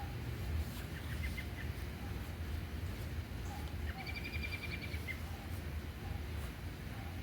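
Steady rain with a low rumble underneath. A short, rapid, high chirping trill comes about four seconds in.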